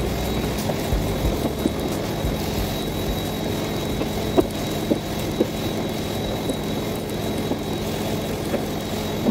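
Carpet extraction machine running steadily, drawing air and water through the blue vacuum hose and cleaning wand with an even rushing hiss and a faint high whine, broken by a few small clicks.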